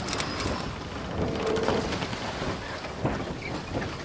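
Whole spiced fish frying in oil on a tawa: a steady sizzling hiss with scattered small crackles.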